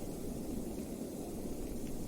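Blizzard wind: a steady, deep rushing with a faint high hiss over it, without gusts or breaks.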